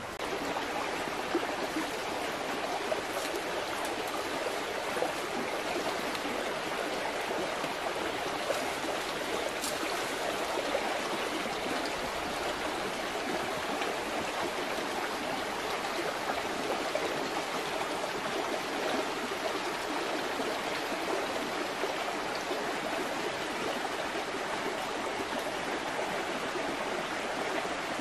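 Steady rush of a stream flowing over rocks.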